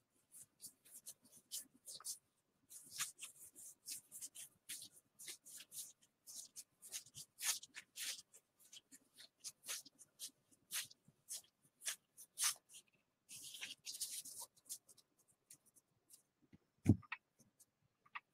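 Stiff Gypsy Queen baseball cards sliding and flicking against one another as a thick stack is thumbed through by hand, a quick, uneven run of papery swishes and ticks. Near the end a single thump as the stack is set down on the table.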